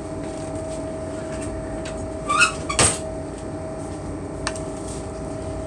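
Steady machinery hum with a held tone underneath. A brief squeak is followed about three seconds in by a sharp knock from kitchen cabinetry, and a lighter click comes about a second and a half later, as a spoon is fetched.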